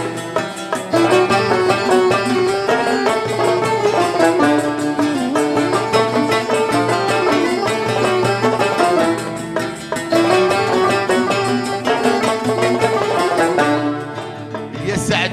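Algerian chaabi instrumental: a mandole playing a fast run of plucked melody notes, accompanied by guitar and keyboard.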